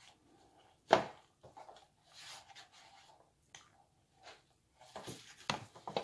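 Close-up eating sounds: a person chewing with irregular wet clicks and smacks. The loudest is a sharp click about a second in, with a cluster of them near the end.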